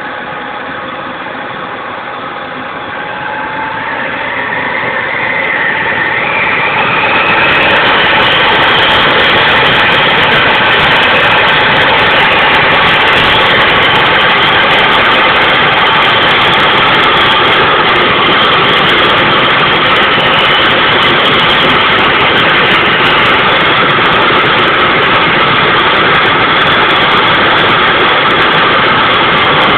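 Small homemade gas turbine jet engine on a mini bike spooling up: a rising whine over the first several seconds, then running loud and steady, a high whine over a rushing noise.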